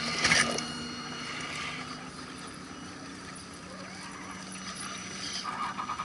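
Small electric motor and gearbox of a 1/10-scale RC crawler truck whining steadily as it drives over a wooden plank bridge, with a burst of clatter from tyres on the planks at the start and a shorter one near the end.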